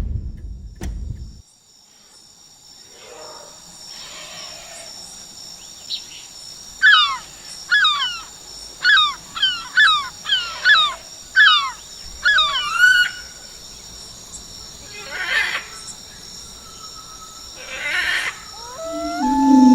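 Outdoor nature ambience: a steady high-pitched drone with a quick run of about ten sharp, downward-sliding bird chirps in the middle, and a low rumble that dies away just after the start.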